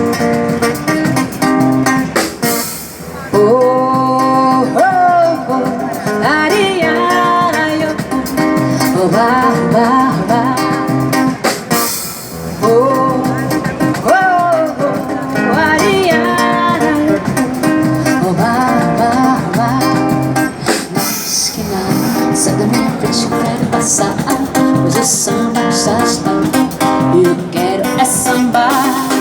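Acoustic guitar strummed in a samba rhythm, with a woman's wordless voice swooping up and down in pitch over it.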